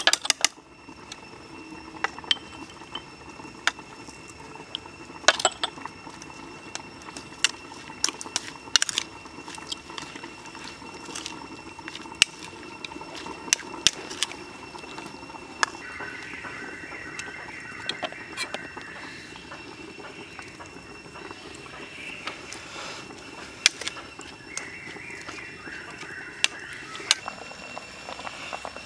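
A spoon clicking and scraping against a bowl as a vegetable salad is tossed and mixed with seasoning, in light irregular clicks.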